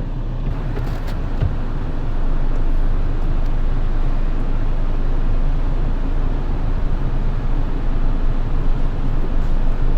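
Mitsubishi Triton pickup driving off-road, heard from inside the cabin: steady engine hum and rumbling tyre and road noise, getting louder about two seconds in.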